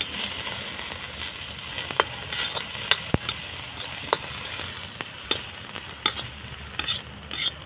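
Chopped onion sizzling steadily in hot mustard oil in a kadhai. A steel ladle stirs it, scraping and knocking against the pan now and then.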